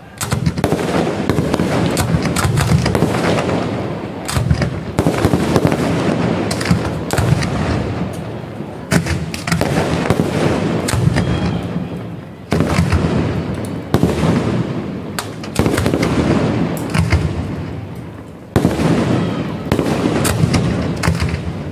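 Aerial fireworks display: a continuous run of shell bursts with dense rapid popping. Sudden louder bangs come every few seconds, each followed by a fading tail.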